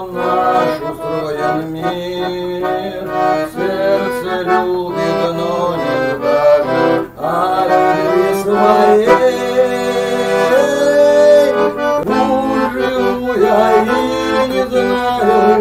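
Chromatic button accordion playing an instrumental passage between sung verses: a melody over bass-and-chord accompaniment, with the bass line shifting about twelve seconds in.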